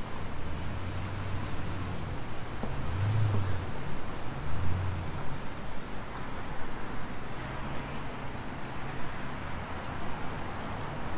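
City street traffic: a steady low engine hum from vehicles, louder for a couple of seconds a few seconds in, over the hiss of tyres on a wet road.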